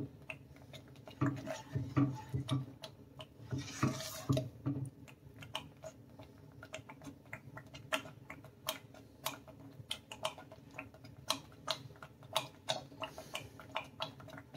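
Thick fig and semolina halwa bubbling in a pan: irregular sharp pops and splutters as thick bubbles burst at the surface, with a spoon knocking and scraping against the pan in the first few seconds. Big bubbles bursting like this mark the halwa as nearly done.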